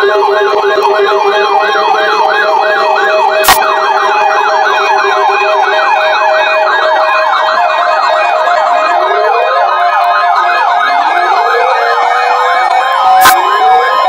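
Several weather alert radios sounding their alarms together: overlapping warbling siren tones, each repeating a few times a second and out of step with the others, with steady beeps underneath. Two sharp clicks cut through, one about three seconds in and one near the end.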